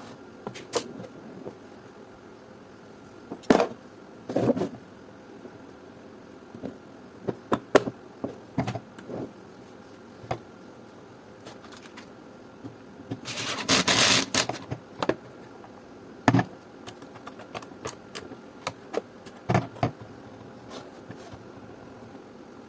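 Irregular clicks, taps and knocks of garment-steamer parts and tools being handled, with one louder rough noise lasting about two seconds a little past the middle.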